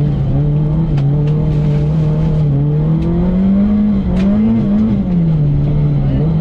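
VW Golf 3 GTI rally car's engine heard from inside the cabin, driving hard: the engine note holds steady, climbs with the revs a little past halfway, then drops back. A few sharp clicks come through over it.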